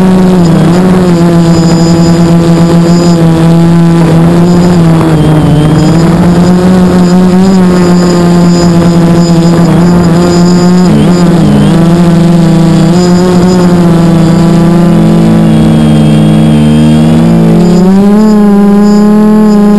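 Brushless Sunny Sky 2216 motors and propellers of a small quadcopter humming loudly as it flies, heard from its onboard camera, with the pitch shifting up and down as the throttle changes. Two close hums run side by side, from motors turning at slightly different speeds.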